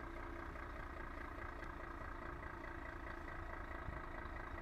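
Heavy truck's diesel engine running steadily at low revs.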